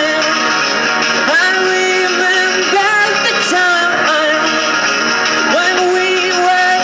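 Live amplified rock song: electric guitar with a male voice singing, notes sliding up and then held.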